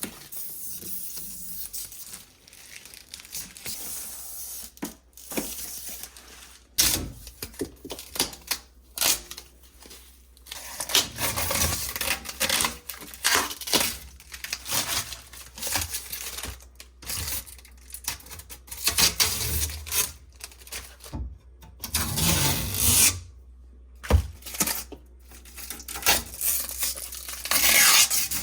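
Tape and plastic packaging being peeled off and crinkled by hand in irregular bursts of tearing and rustling, with a single sharp knock near the end.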